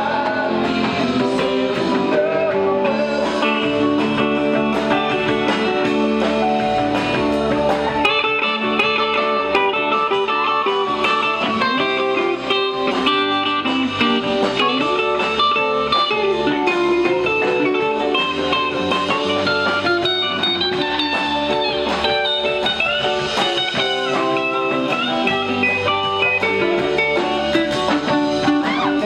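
Live rock band playing an instrumental jam: electric guitar lines over bass guitar and drums.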